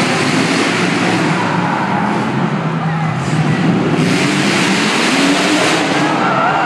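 Demolition derby cars' engines running and revving, with a steady crowd din underneath.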